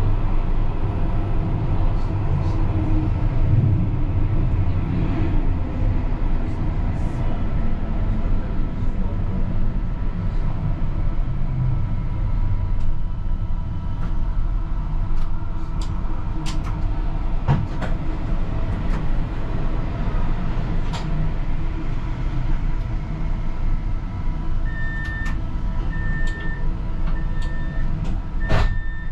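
CAF Urbos 100 tram slowing into a stop: low running rumble with a falling motor whine in the first few seconds, then the standing tram's steady hum with scattered clicks. Near the end, a run of about five short, evenly spaced beeps.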